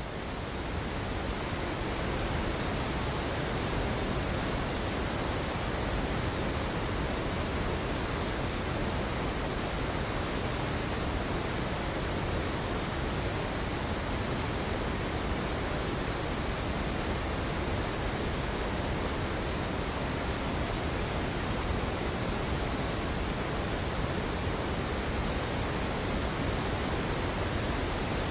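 Kaveri river in flood below Mettur dam: a steady rush of churning water, rising over the first second or two and then level.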